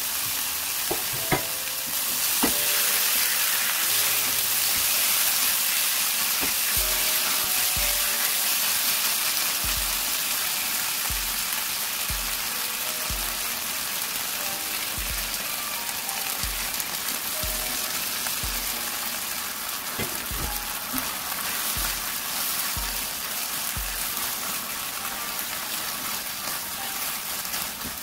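Beef and green bell pepper strips sizzling in hot oil in a nonstick wok as they are stir-fried. There are a couple of sharp clicks in the first few seconds.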